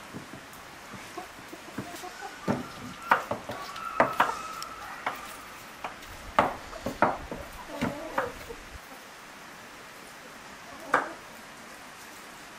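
Irregular knocks and clinks of hand food preparation: a knife on a wooden board and utensils against a metal basin. A few short hen clucks sound a few seconds in, and the knocking thins out in the last few seconds.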